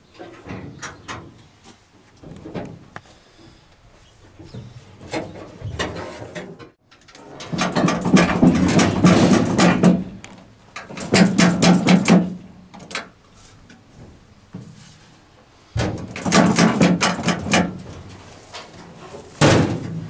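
Metal clanking and rattling from a combine harvester's grain elevator as its paddles and chain are shaken by hand inside the sheet-metal housing, done to check for residual seed. Light scattered knocks come first, then three loud bouts of rattling of a second or more each and a short one at the end.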